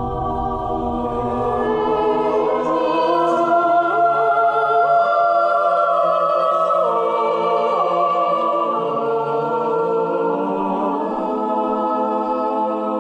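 Soundtrack music: a choir singing slow, long-held notes, swelling a little about two seconds in.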